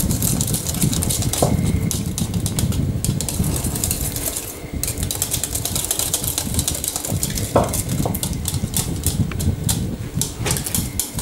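Metal spoon stirring sticky melted marshmallow in a ceramic bowl, with quick repeated clicks and scrapes against the bowl, over a steady low rumble.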